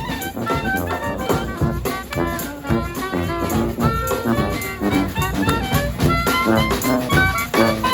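Brass band playing live: trumpets, saxophones and trombones over drums keeping a steady beat.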